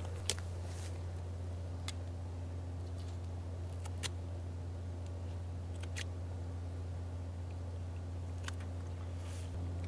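A knife working into a whitetail deer's chest cavity, giving a few short sharp clicks and snips spread several seconds apart, over a steady low hum.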